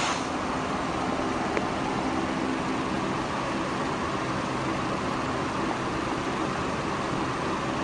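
Steady background noise: an even hiss with a low hum under it, with one faint tick about a second and a half in.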